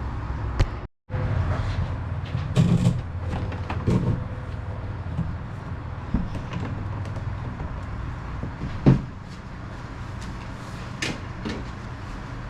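Scattered knocks, clicks and clatter of parts and hardware being handled during kayak shifter assembly, over a steady low hum, with a brief dropout about a second in.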